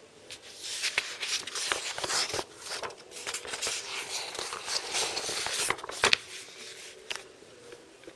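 Paper sheets of an exam booklet being handled and turned over, a dense rustling and crackling from about half a second in to about six seconds in, with a sharp crackle near the end of it.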